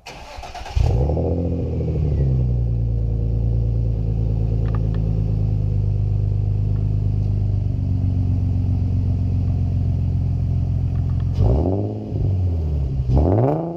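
Nissan 350Z's 3.5-litre V6 starting through a newly fitted Megan Racing catback exhaust. It catches with a flare in revs about a second in, then settles to a steady idle. Near the end the throttle is blipped twice, the pitch rising and falling each time.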